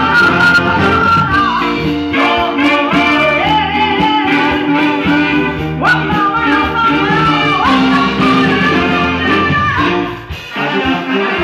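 Live brass band music with drum kit, and a woman singing into an amplified microphone; the music drops briefly about ten seconds in.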